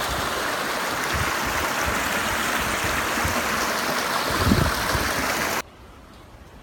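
Rushing stream water, a steady hiss with a brief low thump about four and a half seconds in. It cuts off abruptly after about five and a half seconds, leaving a much quieter outdoor background.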